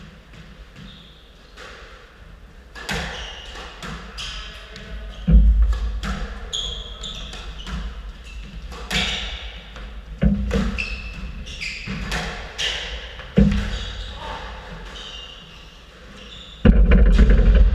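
A squash rally: the rubber ball cracking off the rackets and court walls in a quick irregular series, with several heavy thumps, the loudest near the end, all ringing in the hard-walled court.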